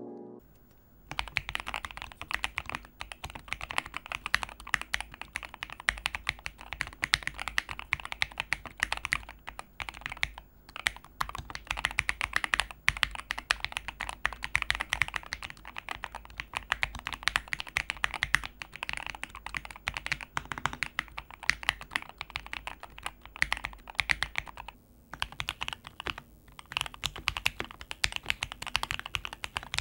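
Typing test on a PG67 mechanical keyboard with lubed and filmed Equalz Tangerine linear switches and dye-sub PBT keycaps: a steady, fast run of keystrokes, with a brief pause near the end.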